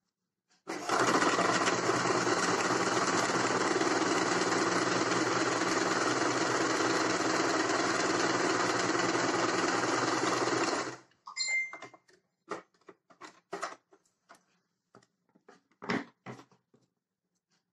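Electric sewing machine stitching a seam through layered cloth, running steadily for about ten seconds and then stopping abruptly. Scattered light clicks and rustles of the fabric being handled follow.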